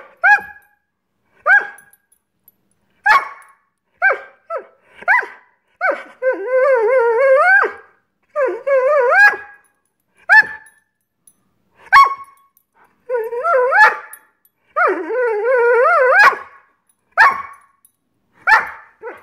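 Greyhound barking in single short, sharp barks, broken by four drawn-out wavering cries in the middle. This is a tantrum: the dog is demanding its dinner.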